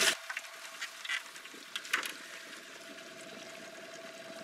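A hooked walleye splashing at the water's surface, a few short splashes in the first two seconds, over a faint steady whine.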